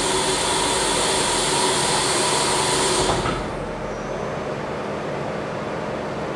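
Miyano ANX-42SYY CNC turning centre running through its machining cycle on stainless steel: steady machine noise with a high hiss that cuts off about three seconds in, leaving a lower, steady running sound.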